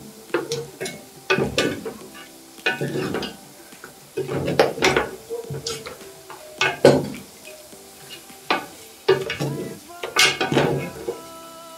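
A wooden spatula stirring chicken pieces through a hot, sizzling onion and tomato mixture in a coated cooking pot, with repeated irregular scrapes and knocks against the pot.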